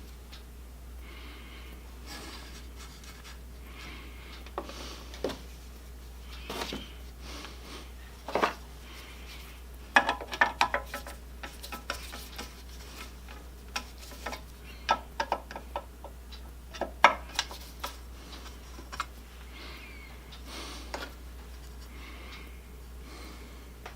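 Chainsaw parts being handled and fitted by hand: irregular light clicks, taps and short scrapes that come in clusters, busiest about halfway through, over a steady low hum.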